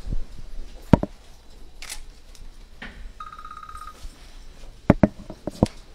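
Scattered sharp camera clicks, several close together near the end, with a short train of rapid electronic beeps in the middle.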